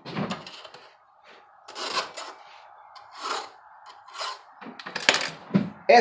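A file drawn across the cutters of a chainsaw chain to sharpen it: short separate strokes, roughly one a second, with a quicker few near the end.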